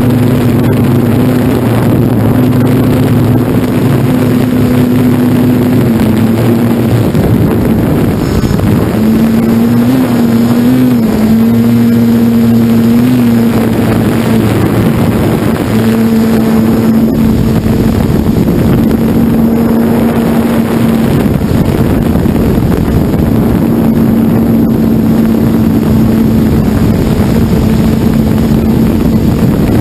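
Electric motors and propellers of an FPV multirotor drone buzzing steadily, heard close up through the aircraft's own onboard camera. The pitch wavers and shifts as the throttle changes.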